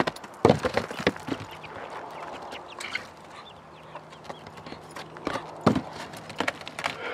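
A baby Nigerian Dwarf goat's hooves knock and clatter on a shingled chicken coop roof and a wooden platform as it jumps about. The loudest knocks come about half a second in and near six seconds, with lighter steps between. Chickens cluck now and then.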